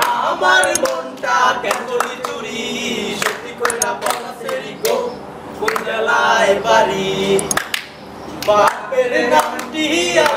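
Young men's voices singing together, with hand claps scattered through the song.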